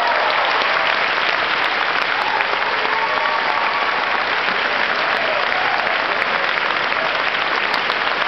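Large audience applauding steadily, with a few voices calling out through the clapping.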